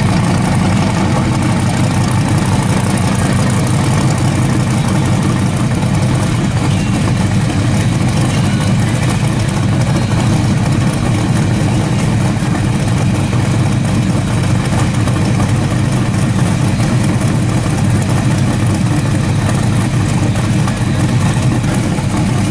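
Hot rod coupe's engine idling with a steady low rumble as the car rolls slowly on grass, no revving.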